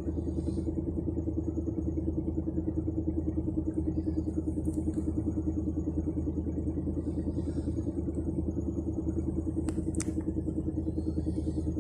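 UAZ Bukhanka van engine idling steadily with a fast, even knocking pulse, plus two sharp clicks about ten seconds in. The owner cannot tell what is knocking: the knock comes and goes, and with the bonnet open it seems to come from somewhere underneath.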